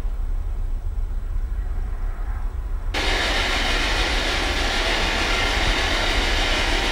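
A low steady rumble, then about three seconds in a sudden loud hiss of radio static from a spirit box sweeping through radio stations.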